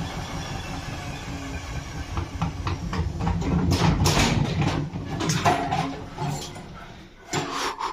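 Zanussi washing machine running a spin with no shock absorbers: a steady low rumble of motor and drum with repeated knocks and rattles that grow louder for a few seconds, then die down before a last short clatter near the end.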